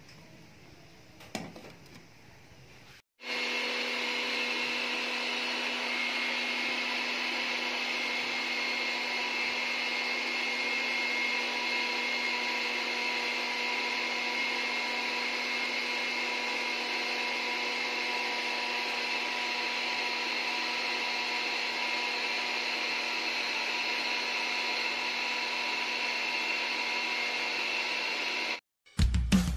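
A steady whirring hum with several fixed tones over a hiss, like a small electric motor or fan running. It cuts in about three seconds in and stops abruptly near the end; before it there is only a faint background with a single click.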